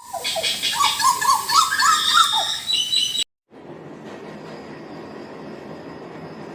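Hooded butcherbird singing: a quick run of short, loud notes that swoop up and down in pitch, cut off suddenly after about three seconds. A quieter steady background hiss follows.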